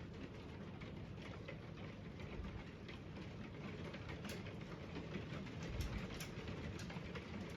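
Rain and hail pattering on an old slate roof, heard from inside under the uninsulated roof: a steady patter with scattered sharper ticks of individual stones and drops, over a low rumble.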